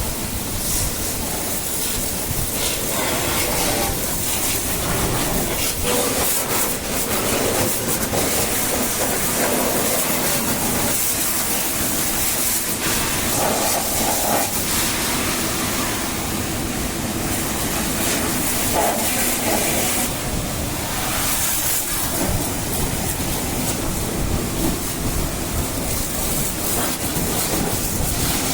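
Steady hiss of a high-pressure water jet spraying against a JCB 3DX backhoe loader during a wash, changing a little as the spray moves.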